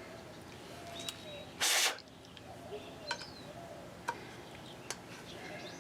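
Wild birds chirping: short, sharp high chirps that drop in pitch, scattered every second or so. About one and a half seconds in comes a brief, loud rush of hiss-like noise, the loudest thing here.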